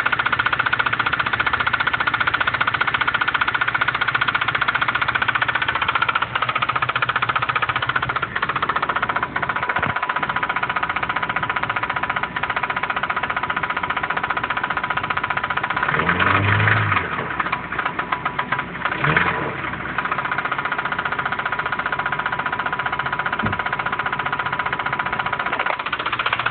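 2006 Acura RSX Type S's 2.0-litre four-cylinder engine idling with a rapid, steady knock from under the valve cover, an awful noise whose cause the owner does not know. The engine is briefly revved up and back down twice, about two-thirds of the way through.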